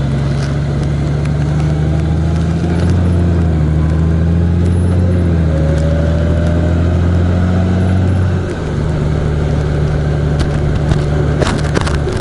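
A road vehicle's engine running steadily while driving, with road noise. The engine note dips briefly about eight and a half seconds in, then carries on at a slightly different pitch.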